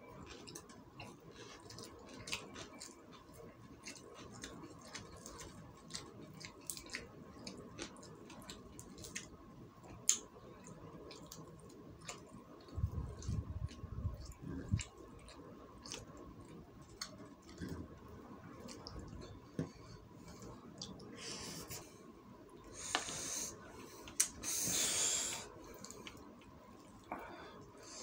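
Close-miked chewing of fried quail and rice, with many small wet mouth clicks and smacks. A few low thumps come about halfway through, and louder crackling, rustling stretches come a few seconds before the end.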